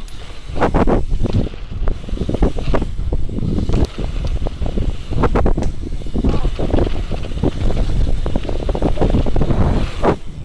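Wind buffeting the microphone of a camera on a bike ridden fast over a dirt trail, with tyres rumbling on the dirt and many short knocks and rattles from the bike over bumps and jumps.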